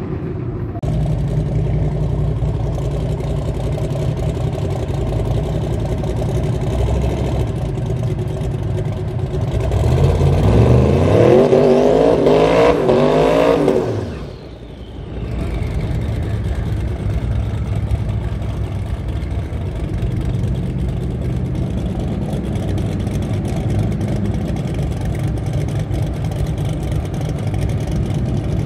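Drag-racing car engines running at a steady rumble. About ten seconds in, one car accelerates hard through several gears: the pitch rises and steps down at each shift for about four seconds. This is the loudest sound, and it cuts off abruptly before the rumble carries on.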